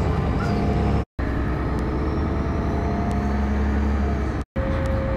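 Road traffic of cars and trucks running close by, a steady low rumble of engines and tyres. It drops out to silence twice for a split second where the recording cuts.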